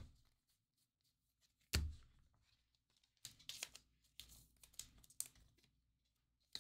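A sharp tap just under two seconds in, then scattered crinkling of a clear plastic card sleeve and foil pack wrapper as a trading card is handled and sleeved.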